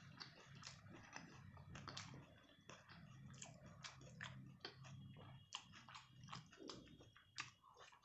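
Quiet close-up chewing of rice and curry: wet mouth sounds made of many short clicks and smacks in quick succession.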